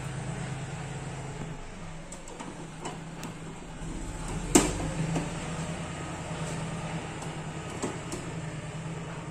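A hand screwdriver turns a screw into the lid of an NVR's metal case, making light scattered clicks and one sharper metal click about four and a half seconds in, over a steady low hum.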